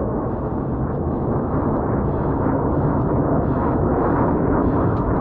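Fighter jet passing overhead: a loud, deep jet roar that slowly grows louder.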